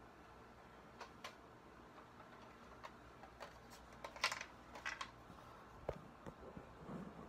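Faint scattered clicks and rustles of handling and movement, with the loudest cluster about four seconds in and a short low hum near the end.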